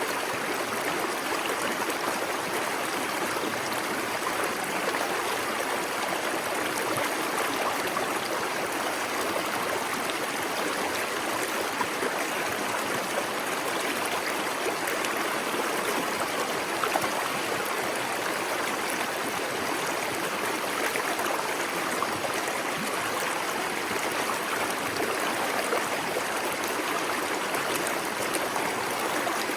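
Small waterfall pouring into a plunge pool: steady rushing and splashing water, with trickling and gurgling.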